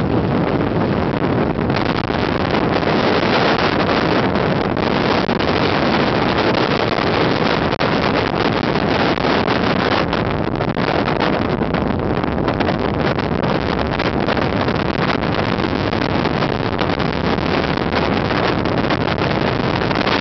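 Strong wind blowing hard across the camera's microphone: a loud, continuous rush with constant buffeting.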